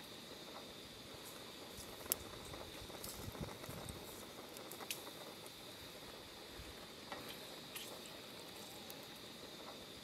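Sausages frying in hot oil in a frying pan: a steady faint sizzle with a few sharp pops and crackles of spitting oil.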